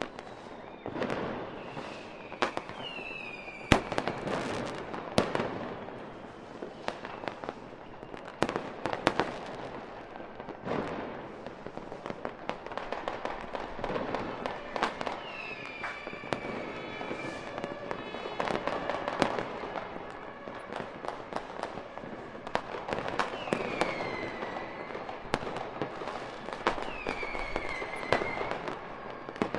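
Fireworks display: a continuous run of bangs and crackling bursts, some sharp and loud, with a few short falling whistles between them.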